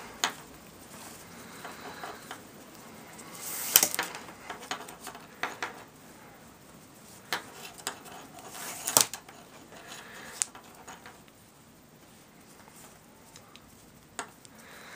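Paracord being handled and pulled through while Solomon bar knots are tied: soft rustling and rubbing of the cord, broken by scattered light clicks and knocks, the sharpest about four and nine seconds in.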